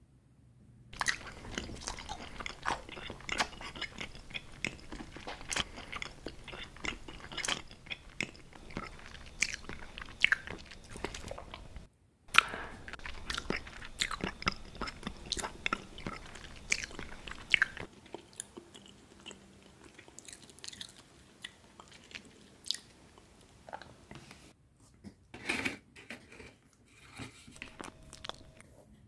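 Close-up ASMR eating sounds: crunchy biting and chewing, dense for the first half, then sparser and quieter with a few louder crunches near the end.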